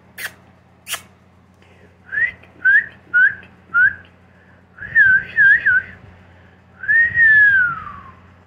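A person whistling to call a dog: two sharp clicks, then four short whistled notes about half a second apart, a quick three-note warble, and a long whistle falling in pitch near the end.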